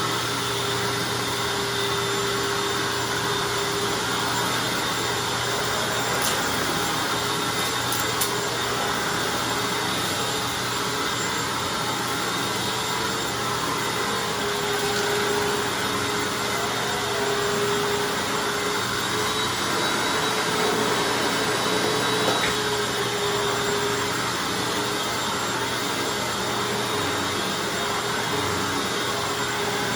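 Hoover Anniversary upright vacuum cleaner running steadily, its motor holding a constant whine while it vacuums up a heavy spread of test dirt.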